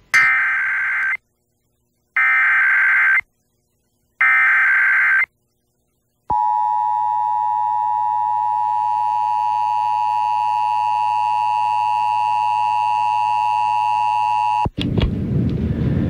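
Emergency Alert System SAME header: three one-second bursts of screeching data tones with short silences between, then the EAS two-tone attention signal, a steady high dual tone held about eight seconds and cut off sharply near the end, heard off an FM broadcast through a stereo.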